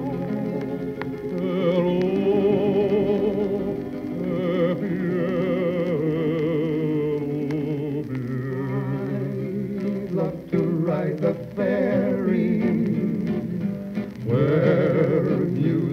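1940 shellac 78 rpm record playing: a male vocal duet with two guitars, the voices singing with wide vibrato over steady guitar accompaniment, with light surface clicks from the disc.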